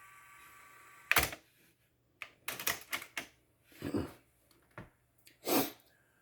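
Cassette deck's transport buttons and mechanism clicking and clunking. A faint steady hum stops with the first and loudest clunk about a second in, followed by several more separate clicks.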